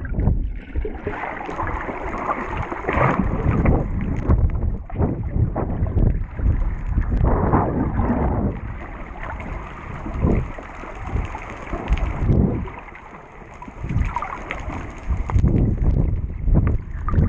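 Muffled underwater water noise heard through a waterproof camera housing: churning and bubbling from a snorkeler's fin kicks, mostly low and rumbling, swelling and fading irregularly.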